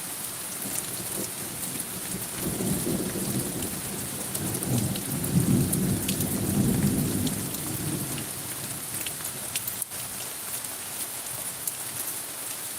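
Rain falling steadily, with a roll of thunder that builds a couple of seconds in, peaks in the middle and dies away. Scattered drips tick through it.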